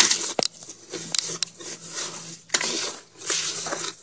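A mixing stick scraping and stirring thickening Quikrete concrete mix in a 5-gallon bucket, a run of irregular gritty scrapes and knocks.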